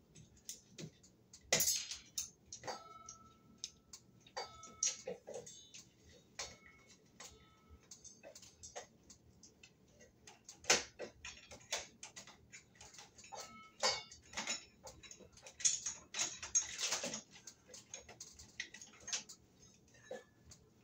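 Irregular clicks, taps and light knocks of hard parts being handled and pushed together, a few with a short ring, as a Harbor Breeze Camden ceiling fan's wires are pushed into the ceiling box and its canopy is worked up against the mounting bracket.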